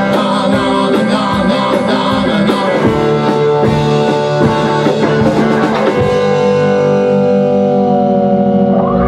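Rock band of electric guitar, bass guitar and drum kit playing. About six seconds in the drums stop and a held guitar and bass chord rings out.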